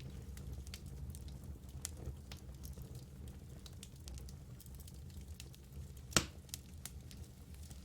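Wood fire burning in a fireplace: a steady low rumble of flames with scattered small crackles, and one loud pop about six seconds in.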